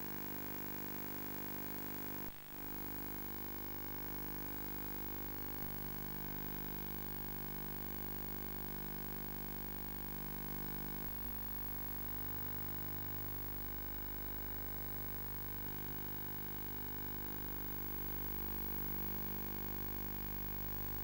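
Steady electrical mains hum with many overtones and a hiss over it, the noise floor of a soundless archival film transfer. A single click about two seconds in.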